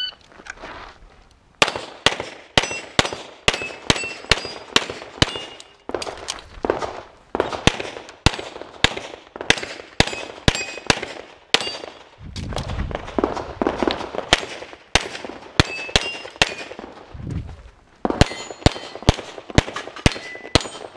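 A shot timer's start beep, then a long string of rapid pistol shots, about two to three a second, each followed by the ring of steel targets being hit. The string breaks off twice briefly in the middle before the firing resumes.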